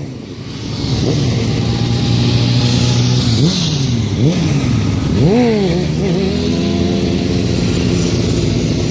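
Motorcycle engine running near idle, blipped three times in quick succession about halfway through, the pitch jumping up and dropping back each time before it settles to a steady idle again.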